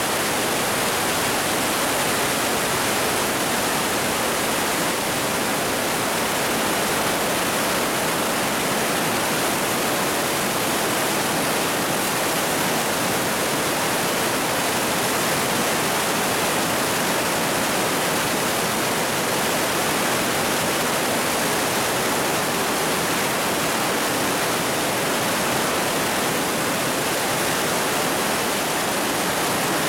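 The Partnach river in spate after a rainstorm, its white water rushing and churning through the narrow rock gorge: a loud, steady rush of water with no let-up.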